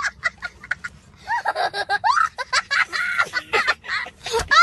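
A young boy laughing hard in a high voice: quick bursts of giggles about five a second, then from about a second in, longer squealing laughs that slide up and down in pitch.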